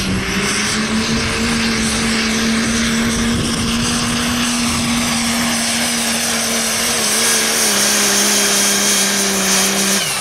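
Diesel pickup truck pulling a sled under full load: a loud, steady engine drone with a heavy turbo hiss over it, the pitch dipping slightly partway through. The engine note falls away sharply near the end.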